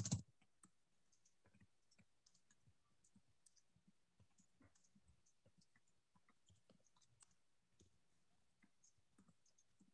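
Near silence with faint, scattered computer-mouse clicks and scroll-wheel ticks as a web page is scrolled, after a short louder knock at the very start.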